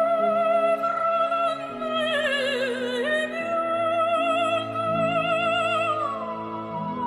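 Background music: an operatic voice holding long notes with vibrato over sustained accompaniment, dipping in pitch and coming back up about halfway through.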